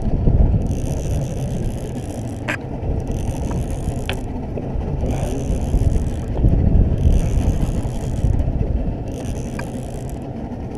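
Conventional fishing reel cranked by hand in spells of about a second each with short pauses, its gears whirring while a hooked fish is reeled up. A few sharp clicks come through, and a steady low rumble runs underneath.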